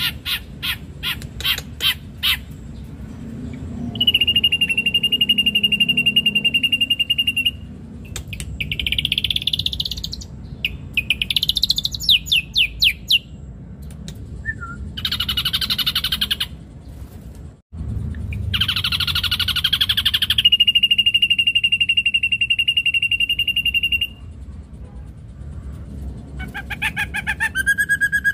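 Caged ashy drongo singing a varied song. It opens with a rapid run of rasping clicks, then gives long steady whistles, quick rising and falling notes and harsh scratchy bursts.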